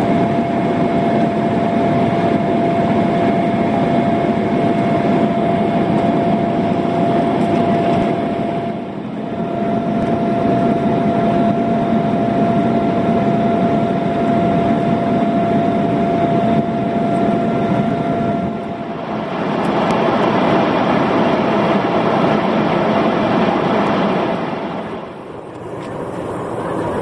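Airliner cabin noise in flight, heard at a window seat over the wing: a steady roar of engines and airflow with a thin, steady whine. The level drops briefly about 9 and 19 seconds in. Near the end it gives way to the quieter road noise of a car on a highway.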